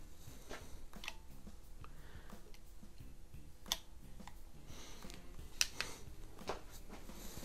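Ampell Acro 1 .177 CO2 pellet pistol being loaded and readied by hand: light handling noise and a few sharp, faint metallic clicks from its loading mechanism. The loudest click comes a little under four seconds in and another near six seconds.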